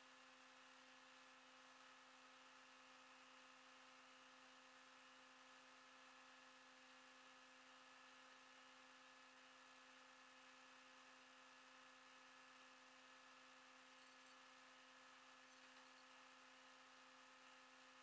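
Near silence: only a faint steady hum.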